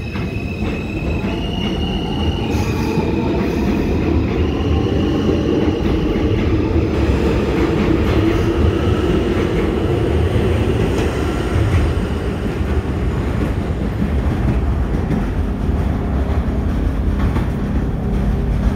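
Kawasaki R160B subway train with Alstom propulsion pulling out of the station. Its traction motors give a whine that steps in pitch during the first few seconds, over a loud, steady rumble of the cars on the rails that carries on as the train moves away.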